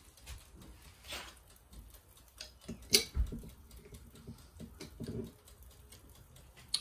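Kitchen handling noises from cookware and utensils: scattered light taps and clicks, a short hiss about a second in, and one sharp clack about three seconds in.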